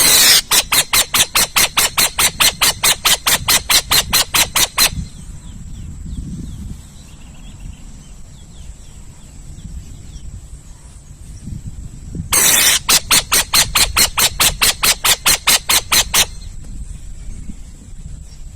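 Owl calling in two bouts of rapid, harsh rasping pulses, about five a second, the first bout about five seconds long and the second starting about twelve seconds in and lasting about four seconds.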